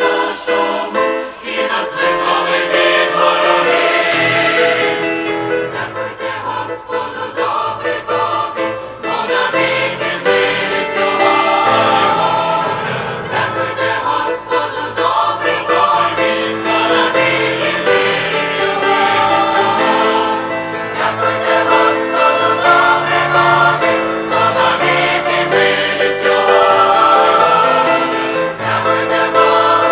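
Mixed choir of women's and men's voices singing a hymn in parts.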